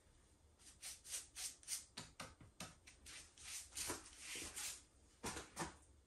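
Paintbrush strokes: a run of short scratchy brushing swishes, two or three a second, starting about a second in and stopping just before the end.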